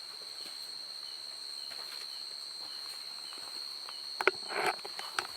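Steady high-pitched chorus of night insects such as crickets. A few sharp clicks and a short rustle come about four seconds in.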